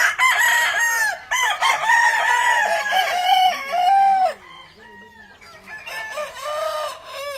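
Several game-fowl roosters crowing over one another, loud for the first four seconds or so, then fainter crows and clucks from birds farther off.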